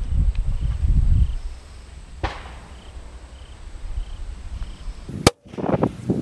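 Wind rumbling on the microphone and movement noise outdoors, with a single sharp crack about two seconds in, and a sharp click with a brief dropout near the end.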